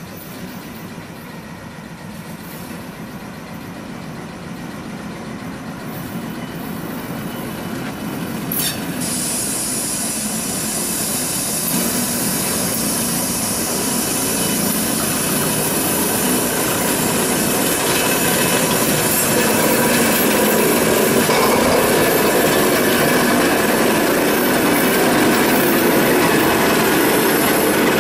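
T448p diesel shunting locomotive approaching at low speed, its engine running and growing steadily louder as it draws near. From about nine seconds in, a high hiss of the wheels rubbing on the curved rails joins it.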